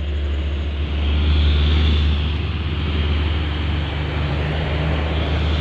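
Heavy diesel truck running close by: a steady low engine rumble with road noise.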